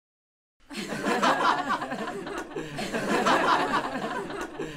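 A man laughing loudly in a long, wavering chuckle, starting about half a second in after dead silence.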